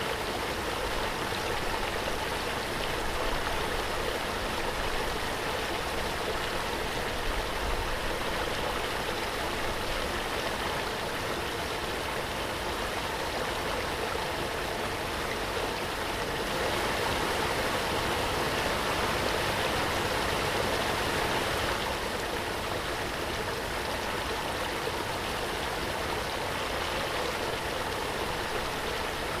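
Waterfall: a steady, even rush of falling water, swelling slightly for a few seconds midway.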